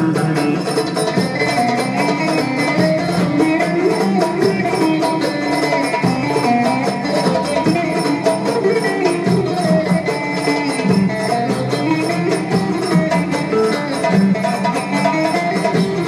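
Bağlama (Turkish long-necked saz) played solo, a Turkish folk tune strummed and picked in a rapid, steady rhythm.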